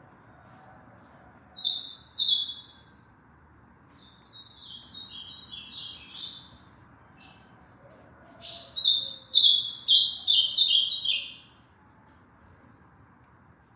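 Ultramarine grosbeak (azulão) singing three short warbled phrases of quick stepped notes, the last and longest phrase the loudest.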